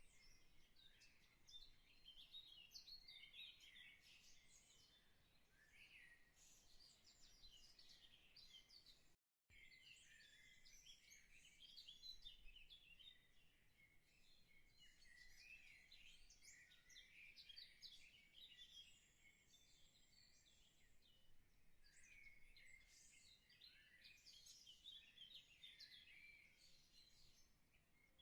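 Faint chorus of small birds chirping busily, many short overlapping calls with no pause except a brief cut about nine seconds in.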